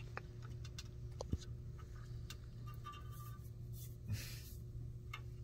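Faint scattered metallic ticks and clicks of a turnbuckle barrel being turned with a thin tool to tighten a steel control cable, with one sharper click about a second in. A steady low hum sits underneath.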